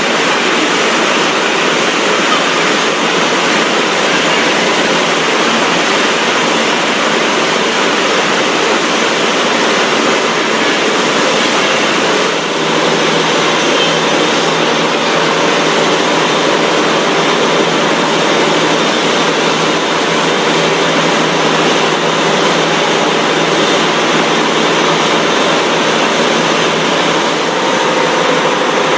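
Steady, loud din of food-processing machinery, an even wash of noise with a faint hum running through it.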